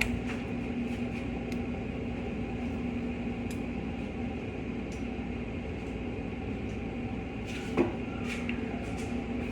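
Steady electric hum of a kitchen appliance with a constant low tone, with a few light clicks and a short knock near the end.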